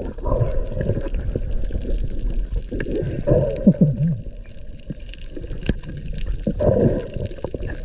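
Muffled underwater sound of water gurgling and bubbling around a waterproof action camera, with scattered small knocks.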